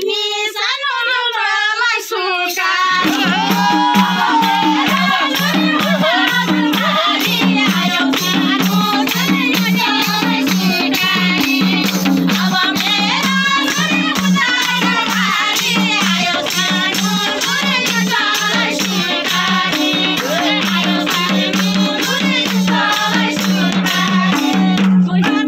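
Live Nepali dohori folk singing: voices singing over jingling tambourine and a drum that sets in with a steady rhythm about three seconds in.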